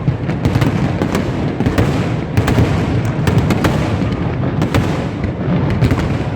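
Fireworks display: a rapid, continuous barrage of bangs and crackles over a steady low rumble of distant bursts.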